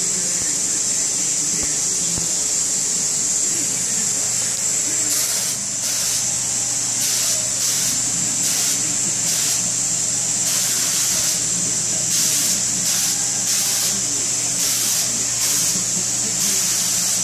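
Siphon-feed paint spray gun hissing in short trigger pulls, about one a second from about five seconds in, over a steady high hiss and a low hum.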